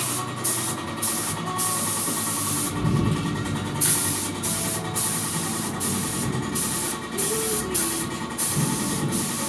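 Paint sprayer hissing in short, irregular bursts as paint is sprayed on, over a steady low hum.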